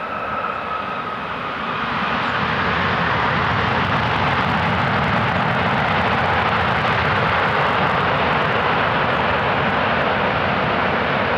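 Boeing 757's jet engines going into reverse thrust on the landing roll along a wet runway: a fading engine whine, then about two seconds in the engines spool up into a loud, steady roar that holds.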